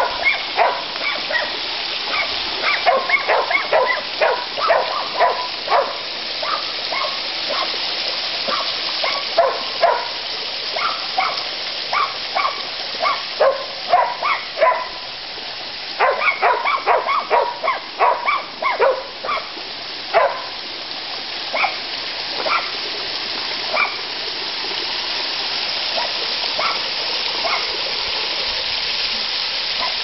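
Small garden waterfall splashing steadily into a pond, with quick runs of short barks over it, busiest in the first two-thirds.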